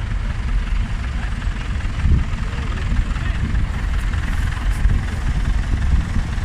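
Vintage Bolinder-Munktell BM 470 tractor engine running as the tractor pulls slowly past close by: a steady low rumble.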